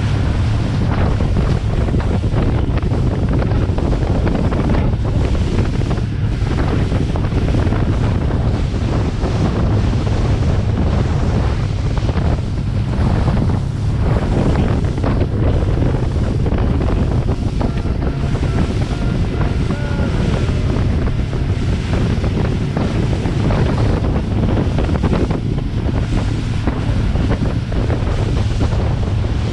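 Motorboat running at speed, its engine droning low and steady under heavy wind buffeting on the microphone and water rushing and splashing past the hull.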